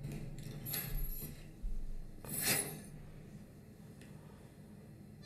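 Opening soundtrack of a music video played back from a computer: a low steady hum with two short noisy swishes, about one and two and a half seconds in.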